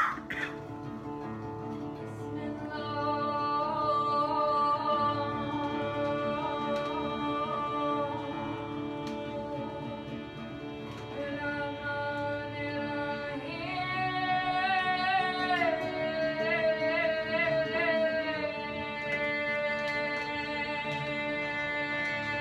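A woman sings a slow song live with a small band, holding long notes, several with vibrato, over a steady instrumental accompaniment. A short loud burst sounds right at the start.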